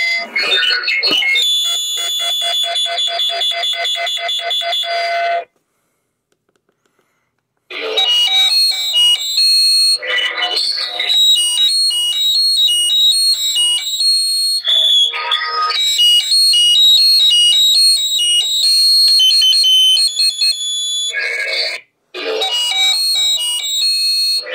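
Christmas carols played back through a small voice recorder's built-in speaker, thin and tinny with no bass. The playback stops for about two seconds a quarter of the way in before the next track starts, and drops out briefly again near the end.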